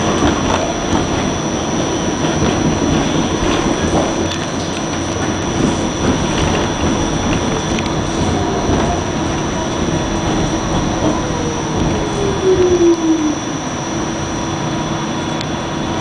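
Pullman Standard R46 subway car running on elevated track, heard from inside the car: a steady rumble of wheels on rail, with a tone that slides down in pitch from about eight to thirteen seconds in.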